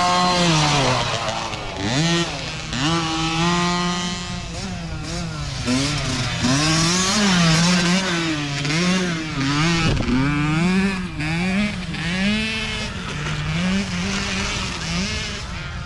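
Mini dirt bike engines revving high as the small bikes pass close one after another, the pitch rising and falling over and over as the throttle is worked. The sound comes up suddenly at the start.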